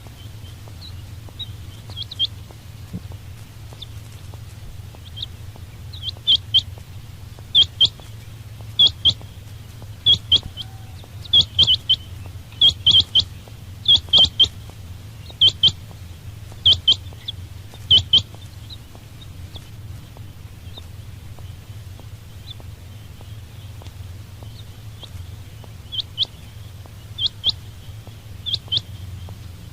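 Quail calling: sharp, high notes in quick clusters of two or three, repeating about once a second from about six seconds in to eighteen, then pausing and starting again near the end.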